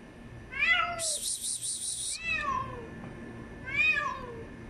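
Stray cat meowing three times, each meow a drawn-out call that rises and falls in pitch. Between the first two meows, a high pulsing buzz lasts about a second.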